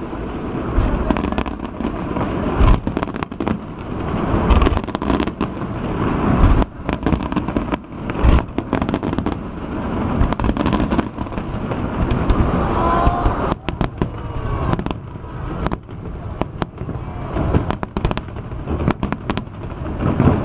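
Aerial fireworks display: a run of deep booms from bursting shells, with dense crackling and popping between them.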